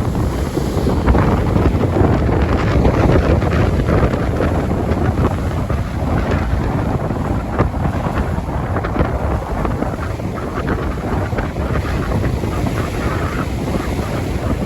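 Strong wind buffeting the microphone over the steady wash of ocean waves on a beach; the low rumble of wind on the mic is the loudest part.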